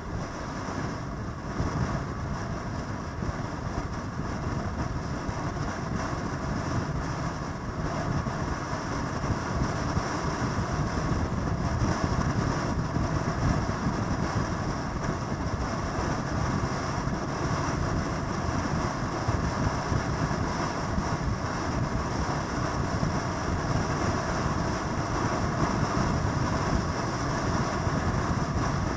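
A vehicle running steadily, with a continuous rushing noise that grows slightly louder over the first ten seconds and then holds.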